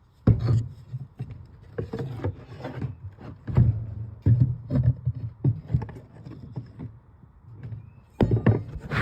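Irregular knocks, thumps and scrapes of wood being handled, about a dozen strikes at uneven spacing.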